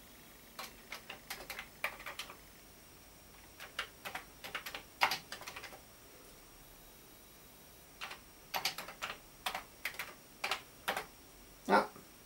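Typing on an original Commodore 64 keyboard: key clicks in three bursts with pauses of about two seconds between them, and one louder key press near the end.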